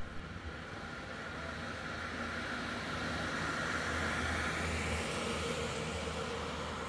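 A passing vehicle: a steady low rumble and hiss that swells to its loudest about four seconds in, then slowly fades.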